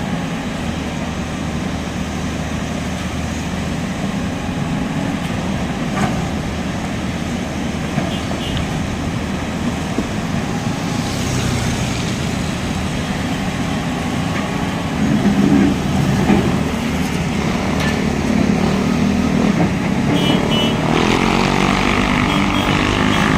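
Excavator's diesel engine running steadily under load during demolition of concrete houses, with a few short knocks.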